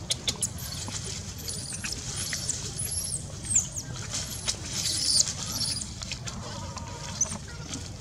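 Newborn long-tailed macaque crying: a rapid run of thin, high-pitched squeals, each rising and then falling away, the distress calls of a very young infant.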